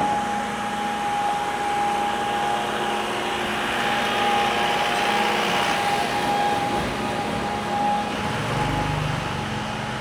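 Street traffic: a small motorbike engine passing, swelling to a peak about halfway through, over a steady high hum. A low rumble comes in near the end.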